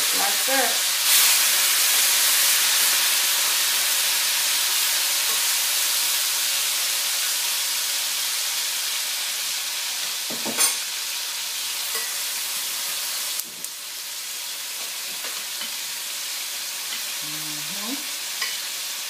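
Marinated beef pieces sizzling in hot oil in a wok as more are added, the sizzle loudest in the first few seconds and slowly dying down. A sharp click comes about ten seconds in.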